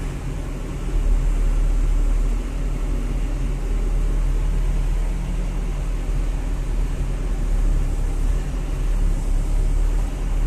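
Sany mini excavator's four-cylinder Isuzu diesel engine running steadily, heard from inside the cab while the boom and bucket are worked. The drone steps up in level about a second in and holds there.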